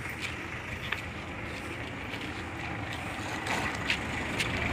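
Steady street background noise with a few sharp, light clicks scattered through it.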